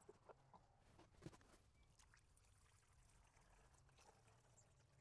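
Near silence: faint background tone, with a few soft handling clicks in the first second and a half.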